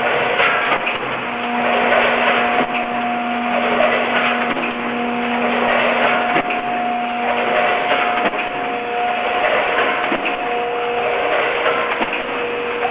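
Vertical form-fill-seal packaging machine running, a dense, continuous mechanical clatter. Steady tones come and go over it, with faint ticks.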